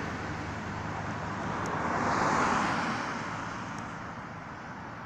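Road traffic: a steady rush of tyre and engine noise that swells as a vehicle passes close by, peaking about two seconds in, then fades.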